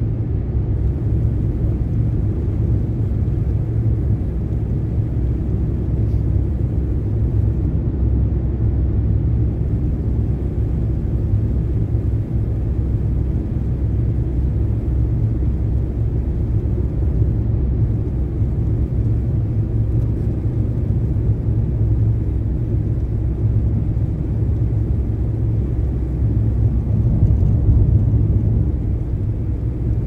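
Steady low rumble of a car driving on a snow-covered highway, heard from inside the cabin: tyre and road noise with the engine running under it.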